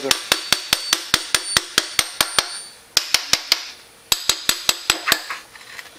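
Ball peen hammer tapping down the ends of the gear shafts in a Polaris Sportsman 550 transmission case, seating them so they stay in the bottom case. Quick, sharp metallic taps, about five a second with a ringing tone, in three runs broken by two short pauses.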